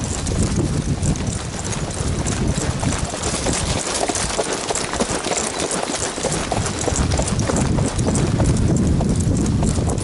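Hoofbeats of several horses on a dirt trail, a continuous, uneven clatter of strikes.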